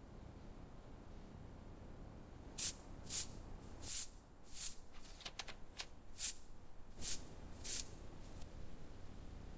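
A series of short, sharp hissing sprays, about ten at uneven spacing, starting a couple of seconds in.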